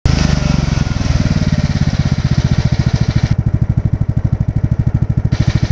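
Small engine running steadily with a fast, even throb, propelling the craft through floodwater, with a rushing hiss over it for the first few seconds.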